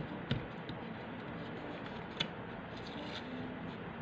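A few light taps and clicks from fingers pressing on the sheet lining a cardboard diorama's floor, over a steady background hiss.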